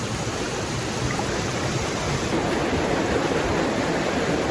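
Waterfall rushing: a steady, even noise of falling water, a little stronger from about halfway through.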